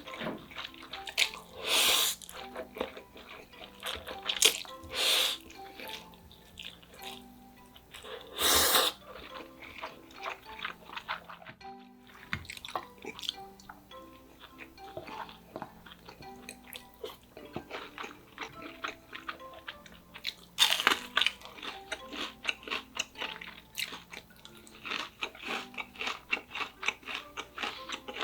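Close-miked eating: crisp crunching and chewing of deep-fried pork cutlet breading, with rapid crackles that thicken in the last third and a few louder half-second noisy bursts near the start. Soft background music with short mallet-like notes plays throughout.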